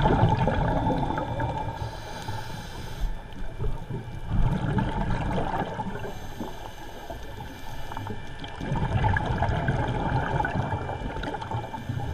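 Scuba diver breathing through a regulator, heard underwater from the camera: three surges of rushing, bubbling exhaust noise, near the start, about four seconds in and about nine seconds in, with quieter inhalations between.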